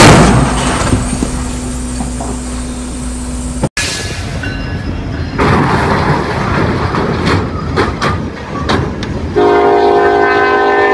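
A train slamming into a truck: a loud crash at the start, then a noisy rumble that cuts off abruptly a few seconds in. Then a freight train striking a truck trailer at a crossing, with clattering and banging, and the locomotive horn sounding a steady chord for the last second and a half.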